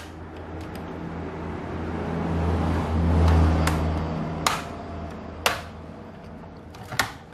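Plastic retaining clips of a laptop's bottom case snapping loose one after another as it is pried from the palm rest with a flat tool: four sharp clicks from about halfway through. Under them a low rumble swells to its loudest about three seconds in and then fades.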